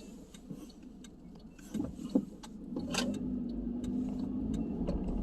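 Car engine and road noise heard from inside the cabin while driving. It is quiet at first, with a couple of sharp clicks about two seconds in, then grows louder as a steady low hum.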